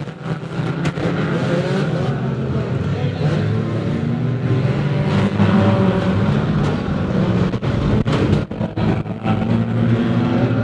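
Several small-engined banger race cars running hard around the oval, their engines revving and overlapping. A cluster of sharp knocks comes about eight seconds in.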